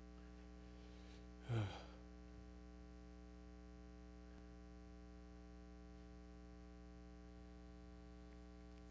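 Steady electrical mains hum with many even overtones. About a second and a half in, one brief sound falls sharply in pitch.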